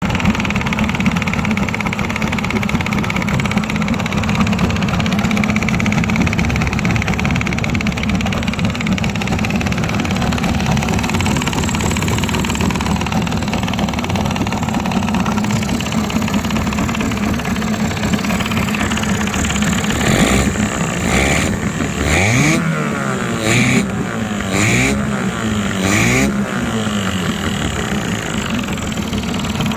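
Tomos T18 engine running steadily, then revved up and down in several quick blips about two-thirds of the way through. It makes a sound the owner finds strange and cannot account for.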